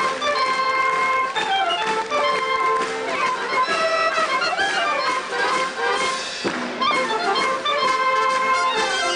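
A town wind band playing a lively festive march, with many instruments sounding together in a continuous stream of melody.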